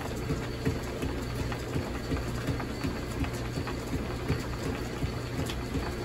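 Old flat-belt-driven drill press running: a steady mechanical hum with regular rapid clicking, about three clicks a second, from the belt drive.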